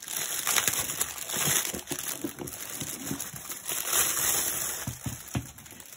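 Clear plastic bag crinkling and rustling as a large cardboard gift box is slid out of it, fading near the end, with a few soft knocks.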